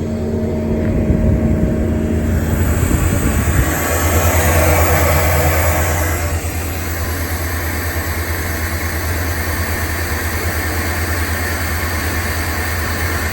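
Heavy engine running with a steady low hum, growing louder and busier from about two to six seconds in, then settling back to a steady run.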